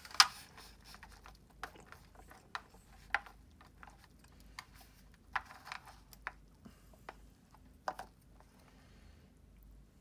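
Chopsticks clicking and scraping against a clear plastic dish while stirring and scooping sticky natto: a string of irregular short clicks and scrapes, the sharpest just after the start.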